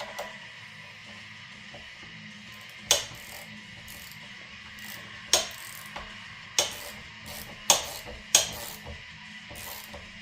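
Hand tools clanking and clicking against metal bolts as they are tightened down: about six sharp clacks, most of them in the second half, over steady background music.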